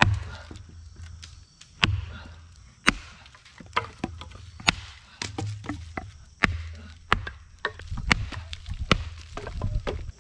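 Axe splitting firewood on a stump chopping block: a string of sharp wooden chops and knocks, about one a second.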